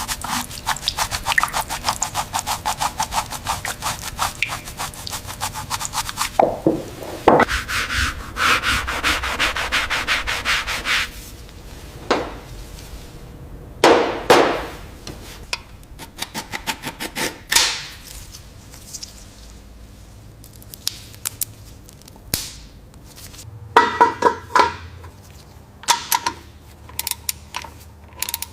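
Quick, evenly repeated rubbing strokes for about the first six seconds, like hand sanding or scrubbing. These give way to a few separate longer scrapes and then scattered short clicks and knocks.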